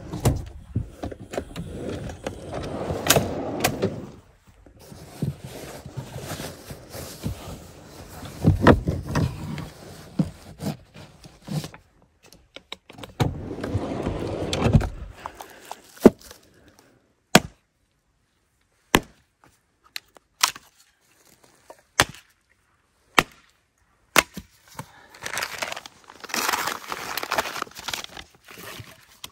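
Gear being handled in a pickup truck bed: rattling and knocks as a bed slide and storage drawers are moved. Then a string of single sharp knocks about every second and a half, and paper crinkling near the end as a campfire is laid with kindling and a paper bag.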